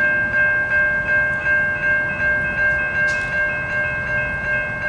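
Railroad crossing bell ringing steadily, about three strikes a second, over a low rumble.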